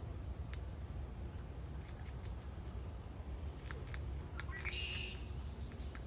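Gray squirrel gnawing at a nut shell: sharp, irregular clicks and cracks from its teeth on the shell, coming more often in the second half.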